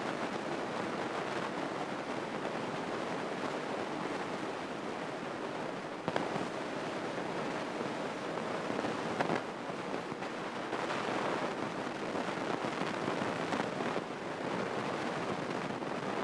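Steady rushing cabin noise of a Grumman single-engine light aircraft in cruise flight: engine and airflow heard in the cockpit. It is broken by a couple of faint clicks about six and nine seconds in.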